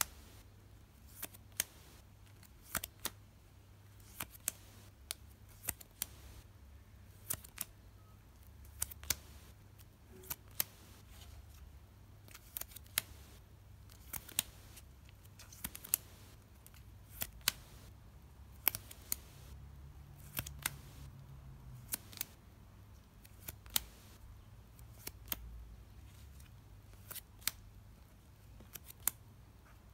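Sleeved trading cards clicking sharply one at a time as they are flicked off a stack and dealt onto another, irregularly, about one or two clicks a second, over a faint low hum.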